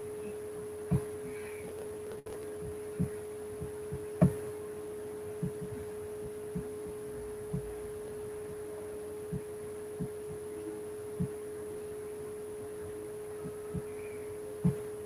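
A steady hum held at one pitch, with soft low knocks at irregular intervals, roughly one a second.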